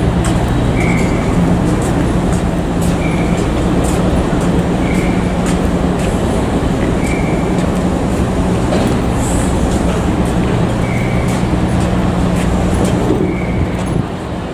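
Ferry's engines running with a steady low hum that drops off slightly near the end. A short high beep sounds about every two seconds: a warning beeper.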